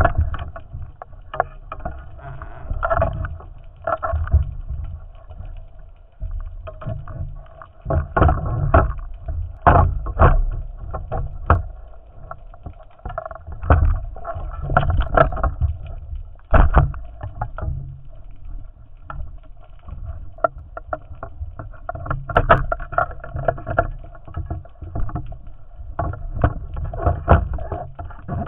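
Water noise heard through a camera's underwater housing: a muffled low rumble with irregular clicks and knocks.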